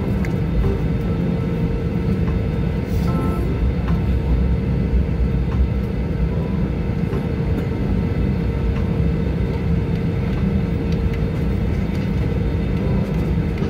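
Cabin noise of an Airbus A320 taxiing after landing, heard from a seat over the wing: a steady low rumble from the rolling aircraft and its CFM56-5B engines at taxi power, with a steady hum above it.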